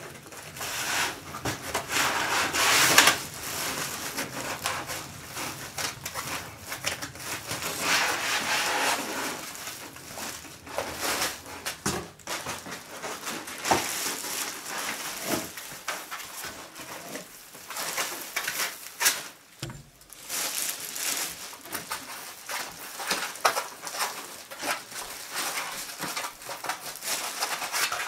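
Clear plastic bag crinkling and rustling while foam packing inserts rub and scrape against a cardboard box, in irregular bursts with small knocks. It is loudest about three seconds in and again around eight seconds in.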